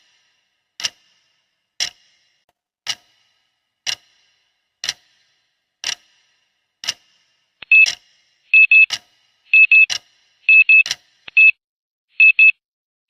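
Clock ticking about once a second, then about eight seconds in a loud electronic alarm starts beeping in quick double beeps, about one pair a second, marking the end of the countdown. The ticks carry on under the first few beeps before stopping.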